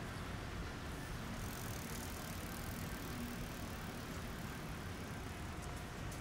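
Steady outdoor city ambience: a low rumble of distant road traffic, with no clear single event.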